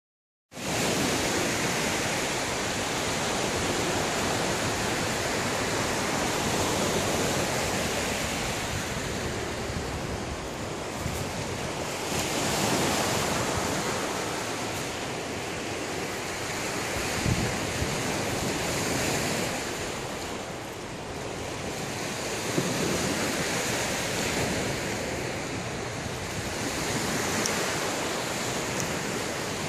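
Small waves breaking and washing over a rocky shore, with wind buffeting the microphone: a steady rushing that swells and eases every few seconds.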